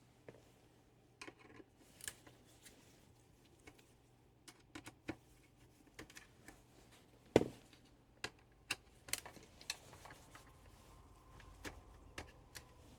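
Scattered light clicks and taps of small parts and tools being handled during a cooktop teardown, with one louder knock about seven seconds in.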